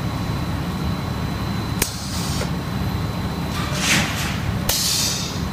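Textile stenter machinery running with a steady low drone. A sharp click comes about two seconds in, and two short hissing bursts follow near the end.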